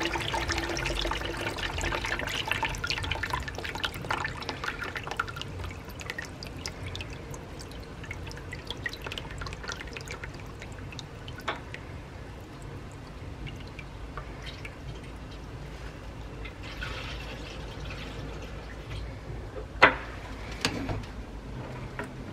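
Sludgy water from a radiator being flushed, pouring out of a hose into a plastic bucket as it fills. Two sharp knocks near the end.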